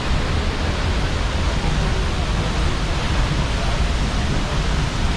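Steady rushing of a waterfall, an even noise with a deep rumble underneath.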